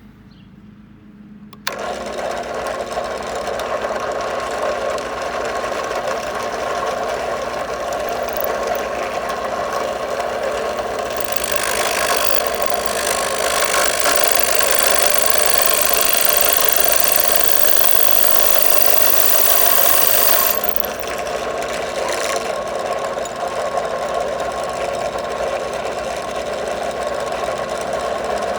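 Electric drill starts about two seconds in and runs steadily. From about eleven to twenty seconds a wood bead maker bit cuts into a wooden stick, adding a louder high hiss, then the drill runs on without cutting.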